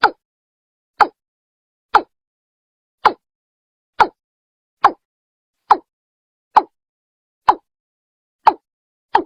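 Watercock (Gallicrex cinerea) calling: a series of short, clipped notes, about one a second and eleven in all, evenly spaced with silence between them.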